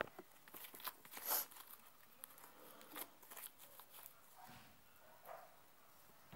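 Homemade base slime being stretched and pulled by hand, letting off a few faint sticky clicks and crackles.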